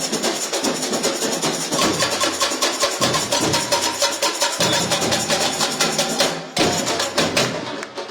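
Samba bateria, a large percussion ensemble of drums and small hand percussion, playing a fast, dense samba rhythm. It breaks off briefly about six and a half seconds in and comes straight back in.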